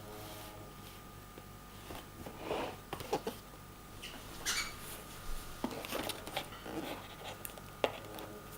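Irregular rustles and a few sharp clicks of a mouse's retail packaging being handled and opened, over a faint steady whine.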